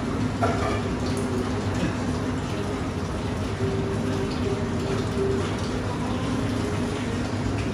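Steady rush of water circulating in a cold plunge tub, with the hum of its pump running; faint steady tones sit underneath.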